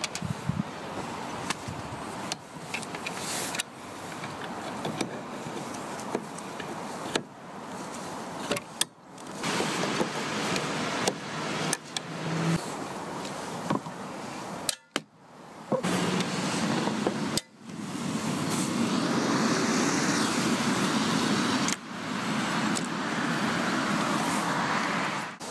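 Small plastic clicks and rubbing from a frameless windscreen wiper blade and its adapter being handled and snapped together, broken by several abrupt cuts. In the last several seconds a steady, louder rushing noise takes over.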